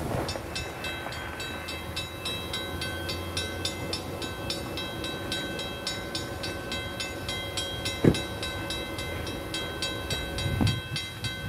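Railroad grade-crossing warning bell ringing in a steady rapid rhythm, about three strikes a second: the crossing is activated for an approaching train. A single sharp knock about eight seconds in.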